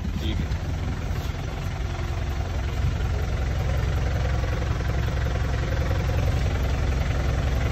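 Old army-green jeep's 3.2-litre engine idling with a steady low rumble.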